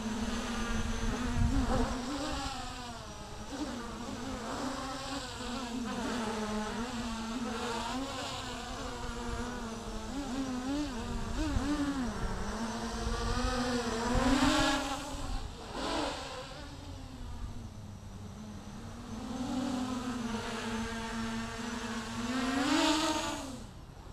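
Armattan CNC 258 quadcopter's four brushless motors and propellers buzzing in flight, the pitch rising and falling constantly as the throttle changes. The buzz swells louder and higher twice, about midway and near the end.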